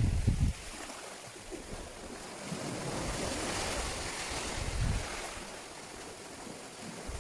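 Ocean waves washing on the shore, a steady hiss, with wind buffeting the microphone in gusts in the first half second and again about five seconds in.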